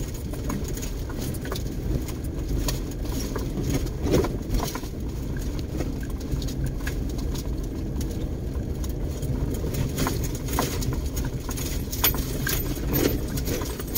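Car driving slowly over a rough, stony dirt track, heard from inside the cabin: a steady low rumble of engine and tyres, with irregular clicks and knocks from stones under the tyres and the body rattling over the bumps.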